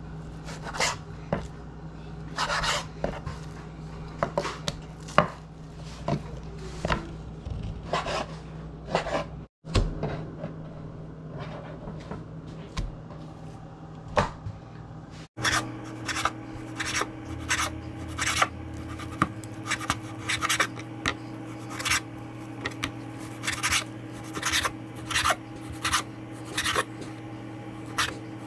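Chef's knife slicing raw beef on a wooden cutting board: the blade knocks the board stroke after stroke, irregular at first, then a steady run of about two strokes a second. A low steady hum runs underneath.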